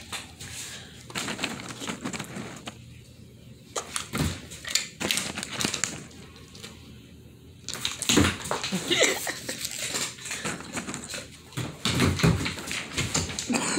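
A German Shepherd moving about on a hardwood floor: irregular clicks and scuffs of its paws and nails, with short knocks, as it goes after a dropped treat.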